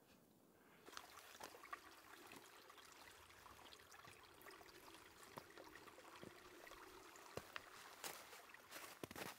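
Faint trickle of a shallow stream running over stones, starting about a second in. Near the end, a few footsteps on stony ground.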